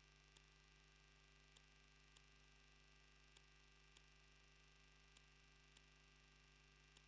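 Near silence from a faulty wildlife-camera audio feed: a faint steady electrical hum with faint ticks in pairs, repeating every couple of seconds.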